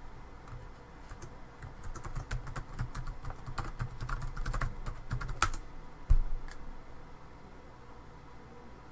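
Typing on a computer keyboard: a quick, uneven run of key clicks that stops about five and a half seconds in, followed by a single dull thump.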